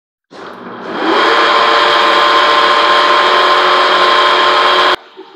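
Horizontal boring mill started from its pendant control: the motor and spindle drive run up to speed over about a second, then run steadily with a loud, even whine. The sound cuts off abruptly near the end to a much quieter running sound.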